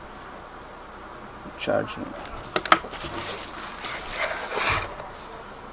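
Handling noise from a sling bag and its accessories being unpacked: quiet for a second or so, then rustling, a few sharp clicks, and a longer rasping stretch near the end.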